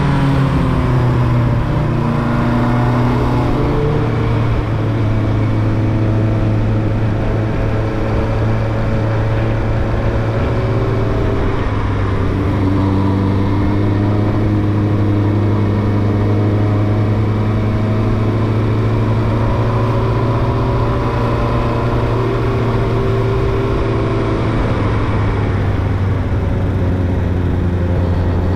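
Engine of a carburetted 2000 Yamaha YZF R1, a 998 cc inline-four, running continuously at moderate revs. The pitch falls over about the first second, then holds fairly steady with slight rises and dips.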